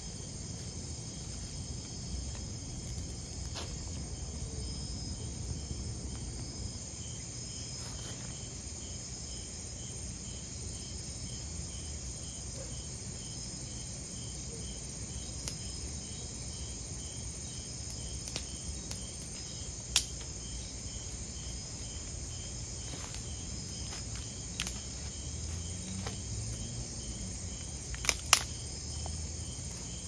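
Night insect chorus of the rainforest: crickets chirping with a steady, evenly repeating pulse over a low rumble. A few sharp cracks from the campfire, one about two-thirds of the way in and two close together near the end.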